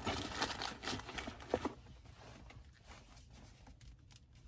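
Rustling and handling noises inside a car for the first second and a half, fading to a few faint clicks and taps.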